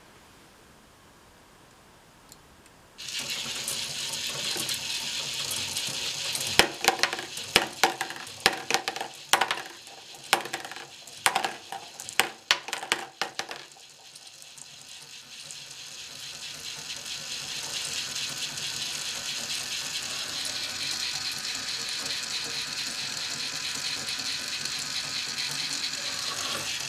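K'nex battery motor starting about three seconds in and running steadily, driving the plastic chain of a marble lift. Between about six and fourteen seconds, glass marbles click and clatter one after another as they are carried up and drop into a plastic tub. After that the motor and chain run on alone.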